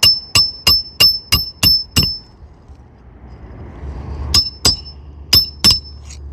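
Hammer driving a roofing nail through an asphalt shingle into the roof decking: seven ringing strikes about three a second, a pause of about two seconds, then four more strikes in two pairs.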